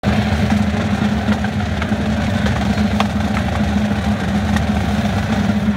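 Marching band brass with sousaphones holding one loud, sustained low chord, with a few sharp percussion hits over it.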